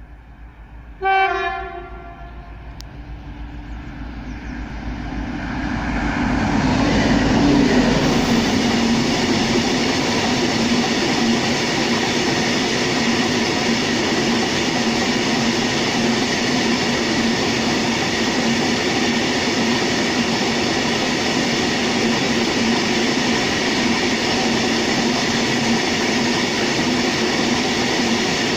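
A locomotive gives one short horn blast about a second in. Then a long freight train of open wagons approaches, and its wheels rumble and clatter steadily as it rolls past close by.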